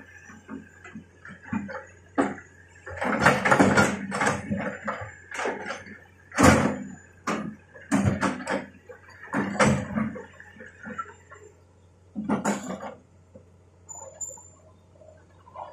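Brush and branches cracking and snapping in irregular clusters as a Hitachi excavator bucket pushes through undergrowth, over the low steady hum of the machine.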